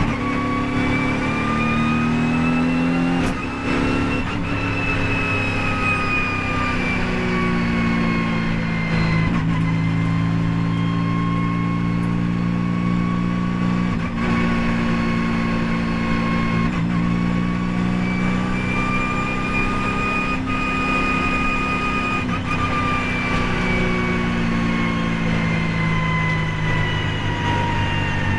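Mercedes-AMG GT4's twin-turbo V8 heard from inside the race car's cockpit at speed, its note rising and falling with the revs through the corners. A high whine follows the engine pitch, and a few sharp clicks cut in.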